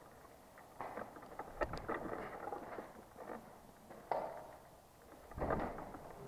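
Scuffing footsteps on gritty concrete floor and stairs, with rustling of clothing and gear. Low buffeting on the microphone about five and a half seconds in.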